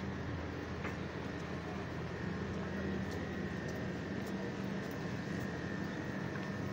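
Steady hum of a busy open-air market street: a low drone with a faint, steady high whine above it and a few faint clicks.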